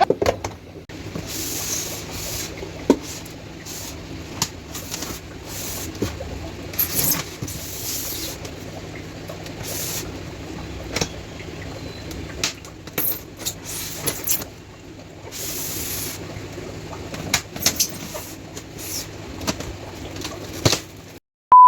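Packaging being opened and handled: irregular rustling, scraping and clicks of box and plastic bags, over a steady low hum.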